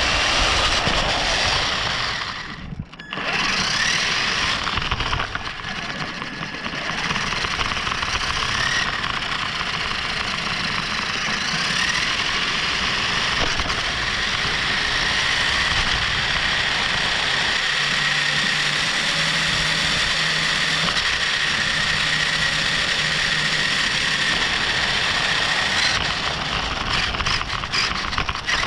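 A radio-controlled car heard from its own onboard camera, driving over rough asphalt. The motor and gears whine, rising and falling with the throttle, over steady tyre and road noise. The sound drops out briefly about three seconds in, and rattling clicks come near the end.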